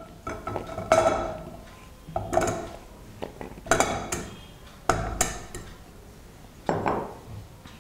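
Whole amla (Indian gooseberries) dropped by hand into a stainless steel pot, about half a dozen irregularly spaced knocks, each followed by a short metallic ring of the pot.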